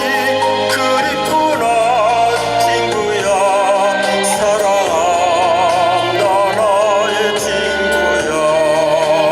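Tenor singing a trot song with strong vibrato on long held notes over a backing track.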